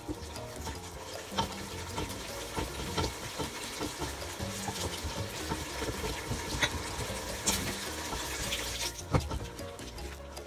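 Wooden spoon stirring a thick, wet ogbono soup base in a pot, with a steady wet slosh and irregular knocks of the spoon against the pot. The loudest knock comes near the end, and there is a stretch of louder hiss about three quarters of the way through.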